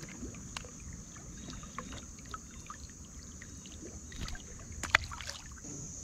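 Creek ambience: low water and handling noise with a few sharp clicks, the loudest about five seconds in, over a steady high-pitched insect drone.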